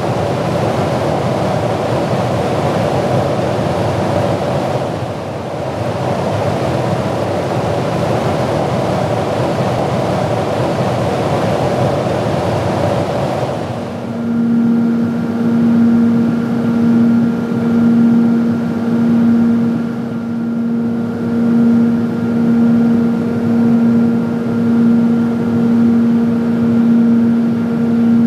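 Aircraft engine and rushing-air noise heard from inside the camera aircraft in flight. It starts as an even rushing noise, then changes abruptly about halfway to a steady low drone that swells and fades a little under once a second.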